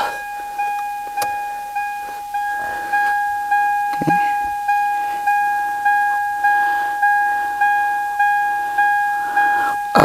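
Toyota Tacoma's in-cab warning chime dinging over and over, about one and a half to two evenly spaced dings a second. It is the key-in-ignition reminder, sounding because the key sits in the lock cylinder. Faint knocks of work under the dash sound with it, one of them about four seconds in.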